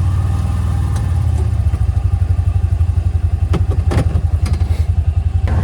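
Small engine of a Gator utility vehicle running with a steady, low, fast-pulsing throb just after starting up. A couple of short clattering knocks come about three and a half to four seconds in.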